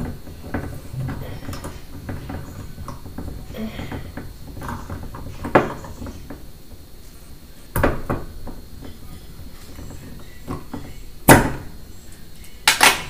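A wine bottle being opened with a corkscrew and its cork pulled. Low handling noise runs throughout, broken by a few sharp clicks and knocks. The loudest knock comes about eleven seconds in, and a quick double knock follows near the end.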